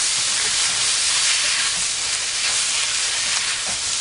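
Cauliflower, onions and sauce sizzling steadily in a wok as they are stirred, the sauce just thickened with a cornstarch mixture.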